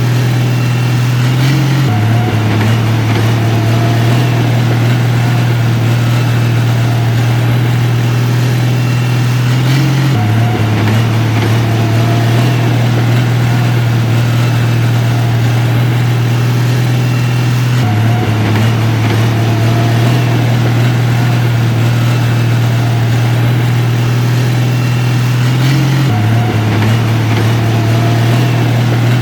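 Heavy construction machine's diesel engine running steadily with a deep hum, its pitch shifting slightly at regular intervals, about every eight seconds.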